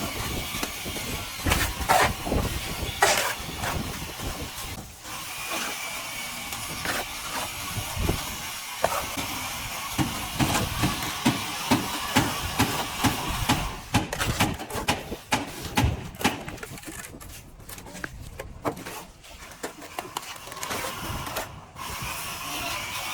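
Plastering tools scraping and rubbing over plaster on a wall in repeated strokes, with frequent light knocks of the tool.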